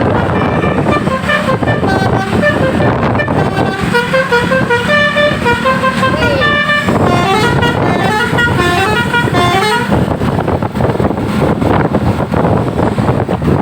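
Telolet basuri multi-tone bus horn playing a fast melody of short stepped notes, played on and on, which stops about ten seconds in, over a steady low hum.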